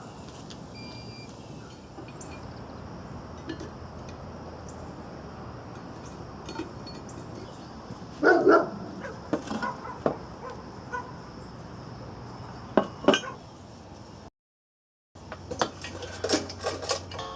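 Hard objects, metal by the sound, clinking and knocking now and then over a steady background hum. A run of quick clinks comes near the end.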